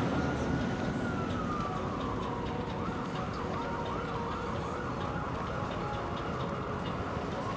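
Emergency vehicle siren over a steady background rumble. It sounds a slow wail falling in pitch, then switches a little before halfway to a fast yelp of about two rises a second, and begins a slow wail again near the end.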